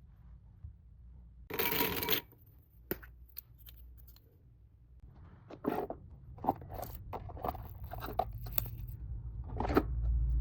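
Packaging being handled and opened by hand: a short tearing or ripping sound about one and a half seconds in, then a run of crinkling rustles and small clicks and taps.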